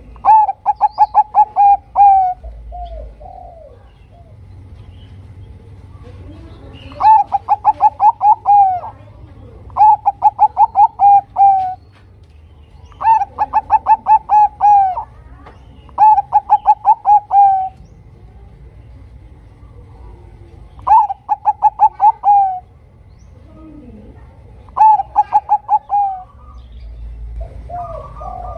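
Bangkok-type zebra dove (perkutut) singing its cooing song: seven phrases of quick, evenly spaced staccato coos, each lasting about two seconds and ending on a longer drawn-out note, with short pauses between phrases.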